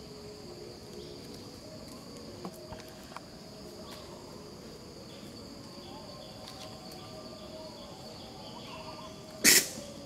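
Steady high-pitched insect drone. A single short, loud burst of sound comes about nine and a half seconds in.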